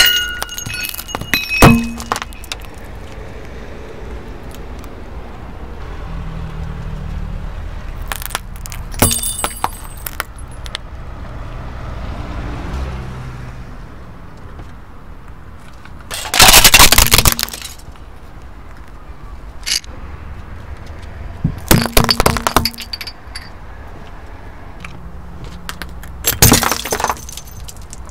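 A car tyre rolling over and crushing brittle objects: five separate spells of cracking and breaking, the loudest about halfway through, over a steady low rumble from the car.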